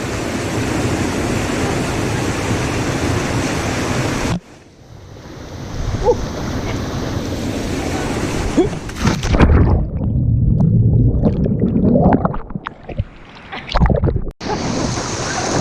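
Loud rushing water of a waterfall slide. About four seconds in it cuts off abruptly to a muffled, dull gurgling with irregular low thumps and swirls, as heard with the microphone plunged under water. Near the end the open rushing water sound returns suddenly.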